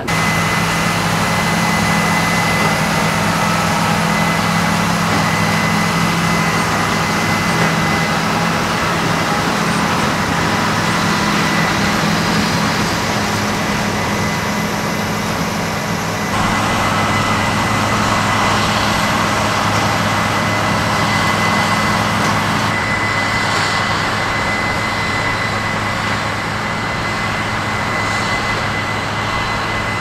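A tractor engine running steadily under load as it pulls a large square baler through wheat straw, with a thin steady high whine over the engine note. The sound shifts abruptly about halfway through and again near three quarters.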